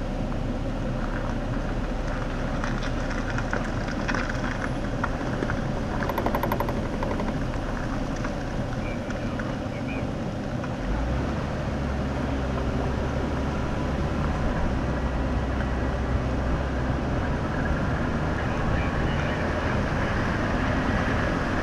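Jeep Wrangler driving on a dirt off-road trail: steady engine and tyre noise with scattered rattles and clicks, the low rumble growing louder about halfway through.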